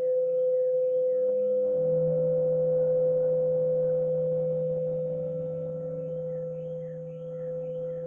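Ambient electronic drone: a steady pure, bowl-like tone, joined by a lower hum about two seconds in. Faint short bird-like chirps come and go in the first couple of seconds and again near the end.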